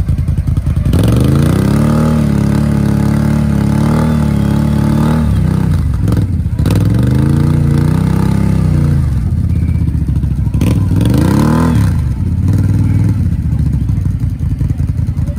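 A vehicle engine revving hard three times, dropping back toward idle between: the first rev is held high for about four seconds, the second rises and falls in a smooth arch, and the third is short.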